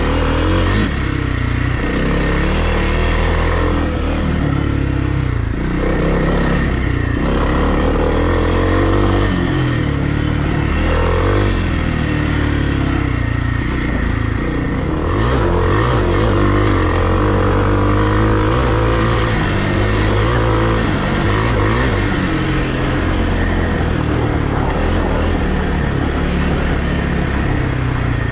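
2020 Kawasaki KLX300R dirt bike's single-cylinder four-stroke engine running while ridden, its revs rising and falling over and over.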